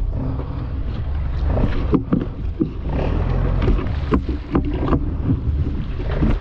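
Small fishing boat at sea with a steady low rumble underneath. Over it come scattered short knocks and splashes as a handline is hauled in and a hooked fish thrashes at the surface beside the hull.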